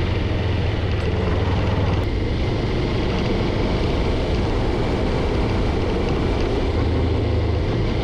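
Vehicle driving along a paved road: steady engine hum with tyre and road noise, unchanging throughout.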